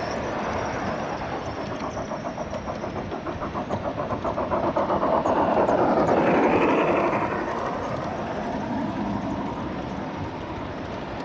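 G-scale model trains rolling past on the track, the wheels clicking rapidly and evenly over the rail joints. The sound is loudest in the middle, as a model steam locomotive passes close by, then eases as freight cars follow.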